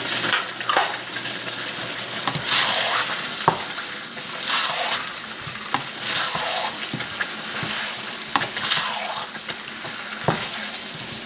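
Potatoes in onion-tomato masala sizzling in oil while a wooden spoon stirs them, with a scraping sweep every couple of seconds and a few light knocks of the spoon on the pan. This is the bhuna stage, the masala being fried down before water is added.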